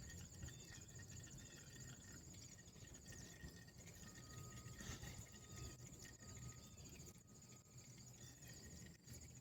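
Near silence with a faint, steady, high-pitched insect trill, like crickets, behind it.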